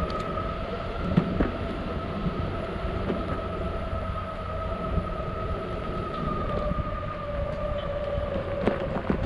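Metroboard electric skateboard's drive motor whining at a nearly steady pitch, over the low rumble of its wheels rolling on concrete, with a few sharp clicks.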